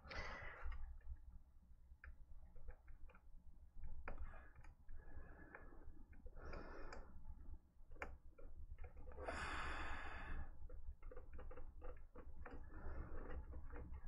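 Faint scattered small clicks and rustling of a thin cable and its connector being handled and pushed onto motherboard header pins, with a longer hiss about nine seconds in.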